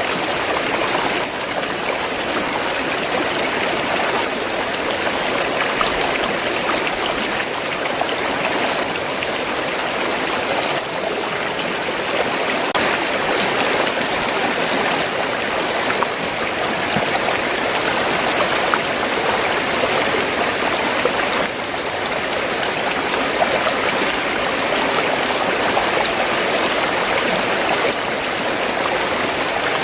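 Fast-flowing stream water gurgling and rushing, a steady, unbroken wash of sound.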